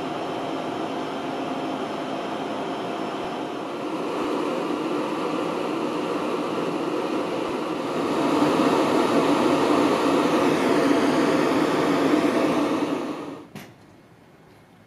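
Stationary Tobu 70090-series electric train's underfloor electrical equipment running: a steady mechanical hum and whir with faint steady whines, growing louder about eight seconds in, then dropping away suddenly near the end.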